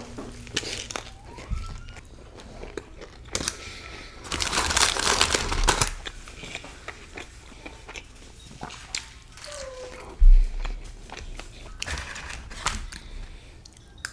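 Close-up eating of fried chicken: crunchy bites and chewing with scattered small clicks. There is a louder crinkling for about two seconds near the middle and a dull thump about ten seconds in.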